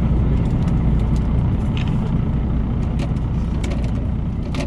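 Fishing boat's engine running steadily with a deep, even rumble, with a few light clicks scattered through it.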